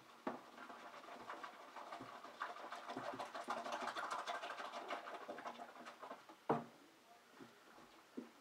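Dishes being washed by hand at a kitchen sink: a stretch of scrubbing and washing noise through the middle few seconds, and a sharp knock about six and a half seconds in, the loudest sound.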